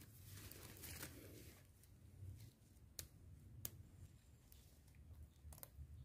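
Near silence with faint rustling of hands handling a caught bird and a woven bamboo trap, and two sharp clicks a little past halfway.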